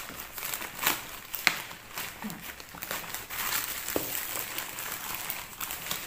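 Plastic courier mailer bag crinkling and tearing as hands pull it open, with a few sharp rips, the loudest about a second and a half in.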